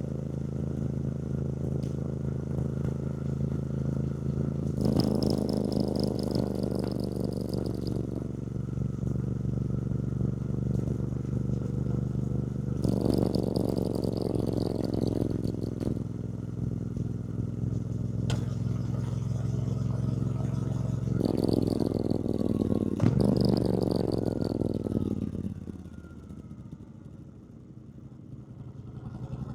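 2024 Triumph Bonneville T120's 1200 cc parallel-twin engine running under way, rising and falling with the throttle in several surges of acceleration. About 25 seconds in it eases off and runs quieter, then picks up again near the end.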